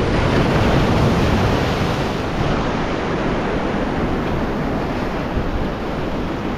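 Ocean surf washing in at high tide, a steady rushing noise, with wind blowing on the microphone.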